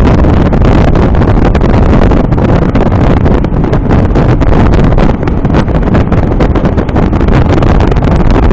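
Loud, steady wind rumble on the microphone aboard a Bennington RCW 2575 tritoon boat running at speed through choppy water. The outboard and the rush of the hull through the water are mixed in.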